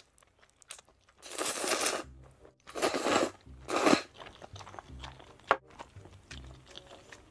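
Spicy instant ramen noodles slurped in three long noisy pulls, starting about a second in, then quieter chewing.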